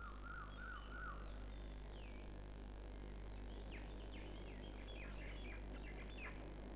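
Faint birds chirping over a low steady hum: a quick run of about five repeated notes at the start, then a scatter of short downward chirps in the second half.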